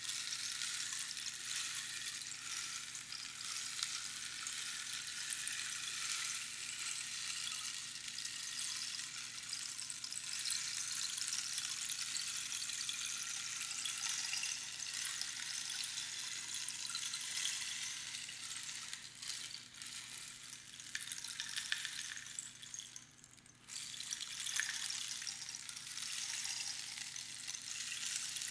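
Rainstick: its fill trickles down the tube past the pins inside, a dense, steady pattering like falling rain. About 23 seconds in it thins out almost to nothing, then starts again at full strength as the stick is turned over.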